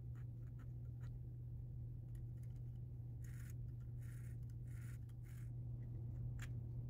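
Small metal clicks and a few short scraping sounds from hands and tools working on a cuckoo clock movement's brass plates and parts, bunched about halfway through, over a steady low hum.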